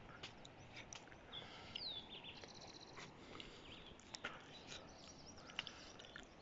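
Very faint bird chirps: a falling call about a second and a half in and a short rapid trill just after, among scattered small clicks.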